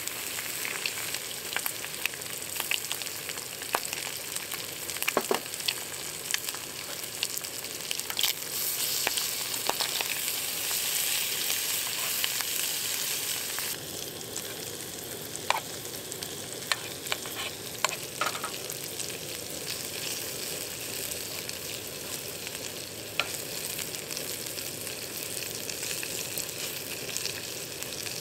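Food sizzling and frying in a hot pan, a steady hiss with scattered sharp pops and spatters; the hiss eases a little about halfway through.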